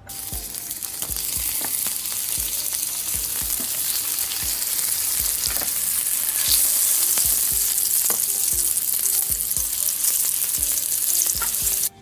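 Sound-effect sizzle of food frying on a hot grill: a dense, steady crackling hiss that swells in over the first second and stops abruptly at the end.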